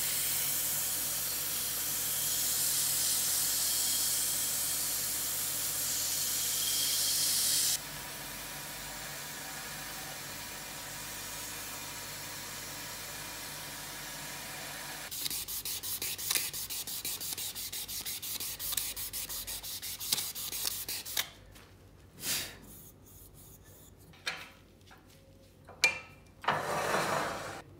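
Wood being sanded. First a steady hiss, then a quieter steady hiss, then fast back-and-forth rubbing strokes from about 15 s, ending in a few separate short scrapes with quiet between them.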